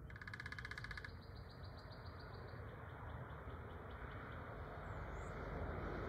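Woodpecker calling: a fast, dense rattle about a second long, then a run of high, sharp notes that slows and fades over the next two seconds. Near the end, a rising wash of traffic noise comes up.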